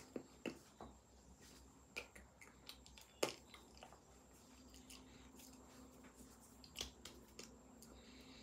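Near silence with scattered faint clicks and taps from a person signing, made by hands meeting and mouth noises, the sharpest about three seconds in. A faint steady hum comes in about halfway through.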